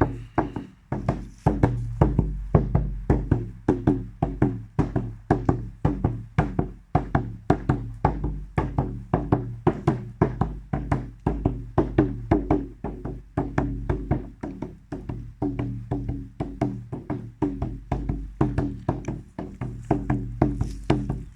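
Music with a steady percussive beat, about three strikes a second, over a low steady drone.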